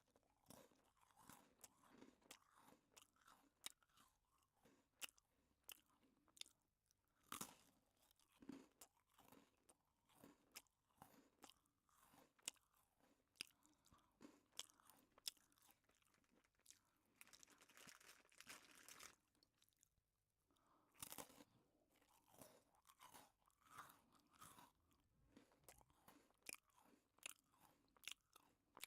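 Someone chewing a crisp biscuit close to the microphone: repeated dry crunches and crackles as it is bitten and ground, with a denser stretch of crunching about two-thirds of the way through.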